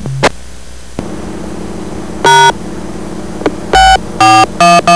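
Touch-tone (DTMF) beeps sent over a two-way radio and heard through a receiving radio, with a steady hiss of radio static behind them: a short tone about two seconds in, then a quick run of four near the end. They enter the touch-tone command that calls up the repeater's voice-command prompt.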